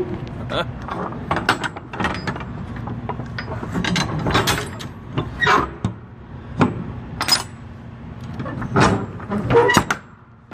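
Irregular metallic clanks, knocks and clicks, a dozen or so spaced unevenly, some ringing briefly, over a faint steady low hum.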